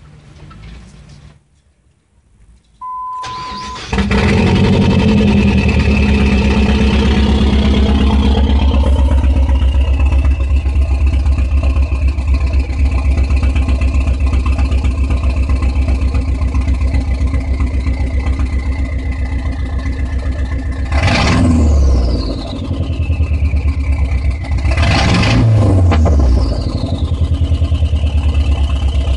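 Dodge SRT-4 turbocharged four-cylinder cranked and started after a steady beep, catching at a high idle that settles over a few seconds into a steady idle, which the owner questions as rough. Later the throttle is blipped twice, about four seconds apart, each rev rising quickly and then falling away with a fading whine.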